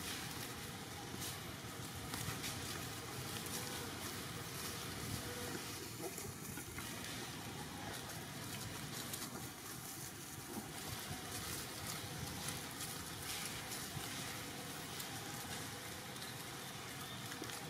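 Steady outdoor background noise with scattered faint rustles and clicks.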